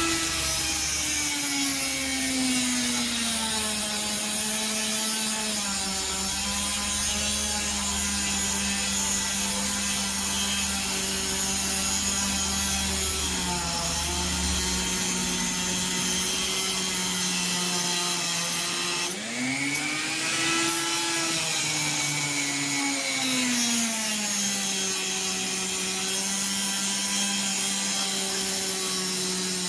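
Handheld power tool motor whining as it works a blade. Its pitch sags as the tool is loaded against the work, drops out briefly about nineteen seconds in, then runs back up and sags again under load.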